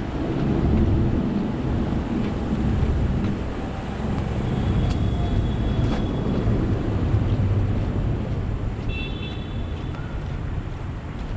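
Gusty wind buffeting the microphone: a loud, low rumbling noise that swells and eases, with a couple of faint clicks and a short high-pitched tone near the end.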